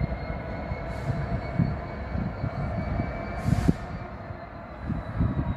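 Rumble of an approaching Class 66 diesel freight locomotive, still some way off, with a steady high whine over it and two brief hisses.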